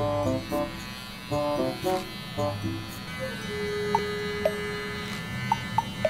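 Portable battery electric trimmer buzzing steadily while it trims eyebrow and ear hair, under background music of short bouncy notes, with a held tone and a few quick chirps in the second half.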